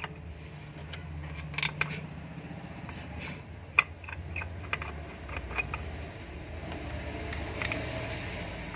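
Light metallic clicks and taps of small screws being fitted by hand into a ceiling fan's motor cover, scattered irregularly, over a low steady hum.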